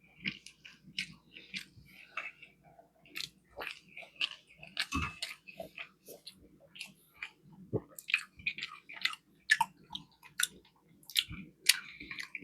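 A person chewing a fish fillet sandwich close to the microphone: irregular wet mouth smacks and clicks, a couple a second, with a heavier bite or two.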